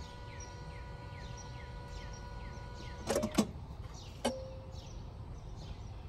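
A few sharp clicks about three seconds in, and a single click with a brief ring about a second later. A faint steady high whine stops at the first clicks, and a soft high chirp repeats at an even pace in the background.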